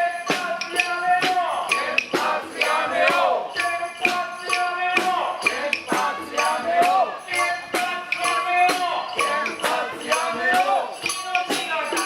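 Music with a steady percussive beat, about two strikes a second, under a melody.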